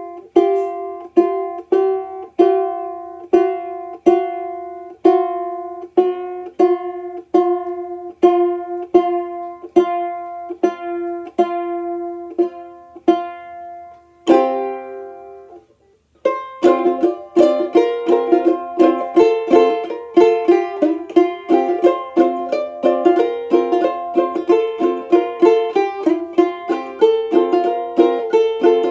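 Tenor banjolele strummed in an alternate tuning: evenly spaced chords about two a second, then one last chord left to ring out about 14 seconds in. After a short pause a faster, busier strummed piece starts.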